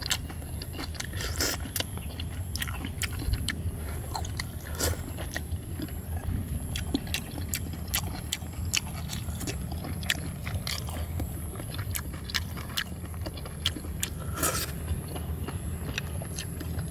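Close-up eating sounds: chewing and biting, with many short sharp clicks at an uneven pace, over a steady low hum.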